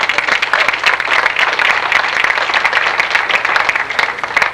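Audience applauding: many hands clapping in a dense, irregular patter that cuts off suddenly at the end.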